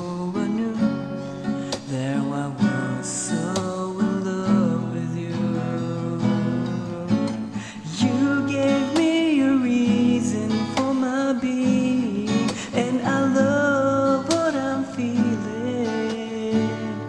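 Music: a man singing a slow ballad while strumming an acoustic guitar.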